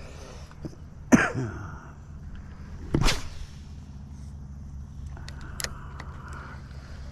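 A man coughing twice, about a second in and again about three seconds in, over a steady low rumble.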